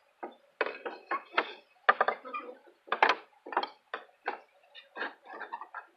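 Hard wooden pieces knocking and clattering in quick, irregular clacks as they are fitted back together by hand.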